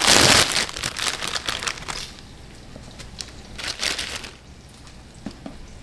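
Plastic instant-ramen packet torn open and crinkled as the dried noodle block is pulled out. The loudest rip comes right at the start, followed by scattered crinkles, and it is quieter from about two seconds in.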